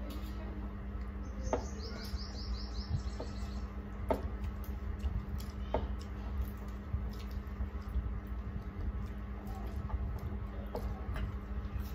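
Eating with the hands: scattered mouth clicks and chewing, and fingers working rice on steel plates, over a steady low hum. About a second in, a rapid run of high chirps lasts about two seconds.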